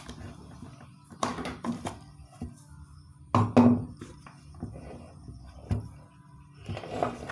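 Plastic knocking and rattling as a blender's jar is lifted off its base and the base is handled and turned over, in a few separate knocks, the loudest about midway.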